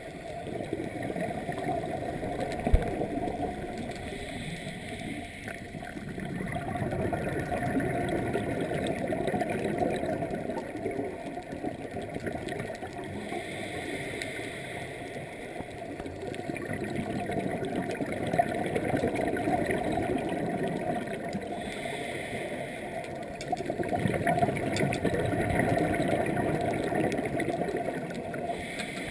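Scuba diver breathing through a regulator, heard underwater through a camera housing: a short hiss on each breath in, then a longer muffled burble of exhaled bubbles, repeating about every eight seconds. One sharp knock about three seconds in.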